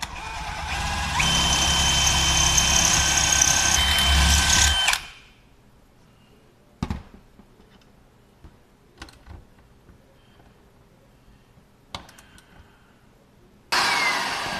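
Cordless drill running for about five seconds, boring holes for the aluminium angle brackets that hold the roof rafters, with a steady high whine through its middle. A few sharp knocks follow, and near the end a shop vacuum switches on.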